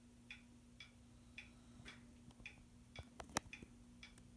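Ceiling fan running on low: a faint steady motor hum with light, even ticking about twice a second, and a few sharper clicks about three seconds in.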